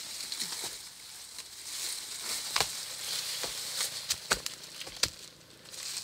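Dry bamboo leaves and litter rustling while bamboo shoots are cut from the ground, with a run of sharp knocks from the cutting tool, the loudest about two and a half, four and a quarter, and five seconds in.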